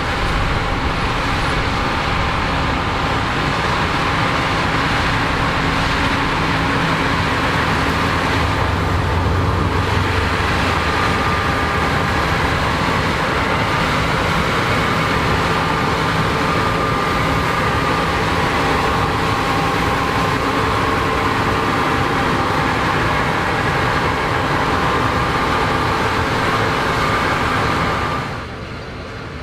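Corn combine harvester working in the field: a steady, loud run of engine and machinery noise that drops off sharply near the end.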